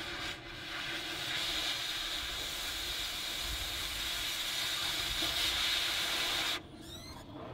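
Oxy-fuel cutting torch cutting through rusty steel under a truck: a loud, steady rushing hiss of cutting oxygen and burning metal that starts suddenly, then cuts off sharply about six and a half seconds in, leaving a quieter hiss.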